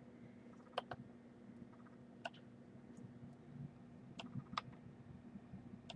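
Faint, scattered clicks of a computer mouse and keyboard, about five over a few seconds, over a low steady hum.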